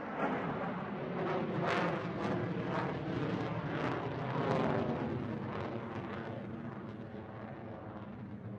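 Jet fighter's engines heard from below during a display manoeuvre: a rough rumble that swells in the first couple of seconds, surging about twice a second, then slowly fades.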